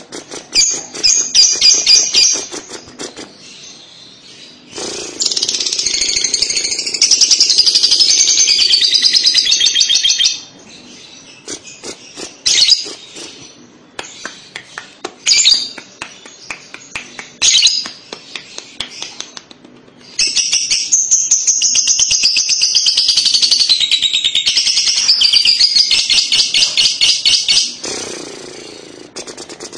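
Fischer's lovebird giving its 'kekek' (ngekek): long runs of rapid, high chattering notes. One run comes about five seconds in and lasts some five seconds, and a second, longer run starts about twenty seconds in. Short bursts of chirps fall between them.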